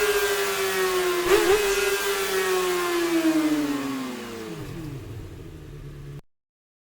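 Kawasaki Ninja ZX-6R 636 inline-four engine running at high revs, its note sliding slowly lower, then dropping steeply and fading away before cutting off suddenly near the end.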